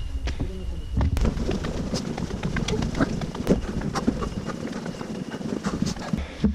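Footsteps on steel checker-plate mesh stair treads: irregular metallic clanks and knocks with each step, over wind rumbling on the microphone.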